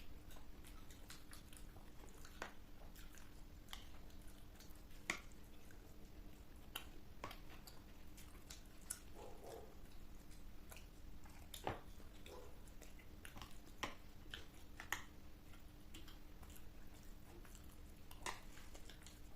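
Chewing and biting of crisp snack food, heard close up as scattered soft crunches and mouth clicks at irregular intervals over a faint steady hum.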